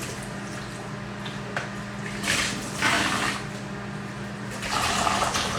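Wet squishing and splashing of grated eggplant being squeezed to press out its water, in two short spells, one about two seconds in and one near the end.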